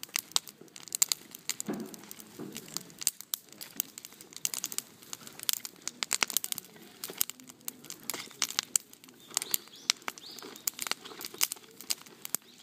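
Shrine bonfire crackling, with sharp irregular pops and snaps several times a second as the fire burns.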